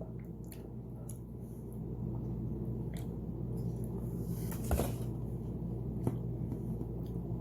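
Steady low room hum with a few faint clicks and knocks, about three seconds, five seconds and six seconds in.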